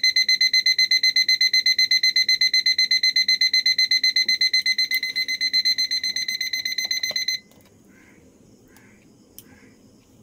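Orpat quartz alarm clock's electronic alarm beeping rapidly and continuously in a high, steady pitch. It cuts off suddenly about seven seconds in, as a hand presses down on top of the clock to silence it.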